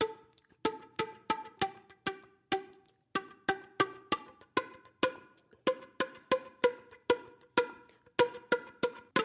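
Instrumental music of short, sharply struck or plucked notes in a quick, even rhythm, about three a second, each ringing briefly at a clear pitch.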